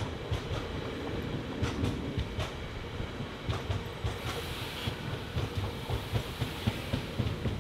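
Loaded coal hopper wagons rolling past: a steady low rumble of wheels on rail with irregular sharp clicks.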